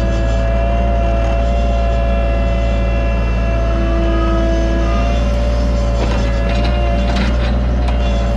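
Cat 303.5 mini excavator running steadily, its engine drone carrying a constant hydraulic whine, with a few short knocks about six to seven seconds in.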